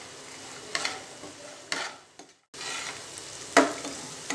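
Spatula scraping and stirring fried paneer cubes and chopped vegetables in a frying pan over a light sizzle, with a few separate scrapes, the loudest about three and a half seconds in. The sound drops out for a moment just past halfway.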